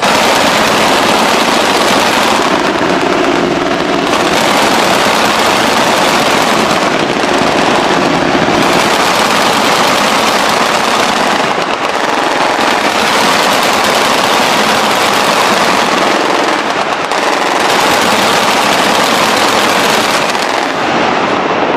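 Sustained machine-gun fire in long, nearly unbroken bursts, loud and dense, with short dips every few seconds.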